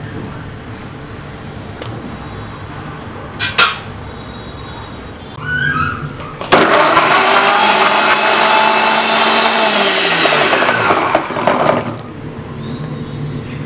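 Electric blender puréeing halved strawberries: the motor starts suddenly about six and a half seconds in, runs for about five seconds, and its pitch falls as it winds down. A sharp knock comes a few seconds before it starts.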